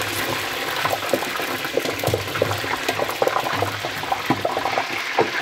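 Pork rinds (chicharon) deep-frying in hot oil in a large aluminium pot: steady sizzling and bubbling, with many small crackling pops throughout. This is the final fry, the rinds almost done and puffed crisp.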